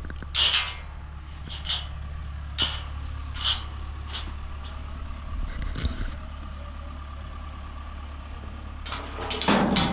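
A vehicle engine running with a steady low drone, with several short, sharp clicks or rattles over it in the first half. Something louder starts just before the end.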